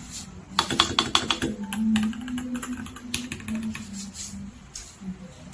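Typing on a Royal Kludge RK96 mechanical keyboard: a quick run of key clacks about a second in, then slower, scattered keystrokes.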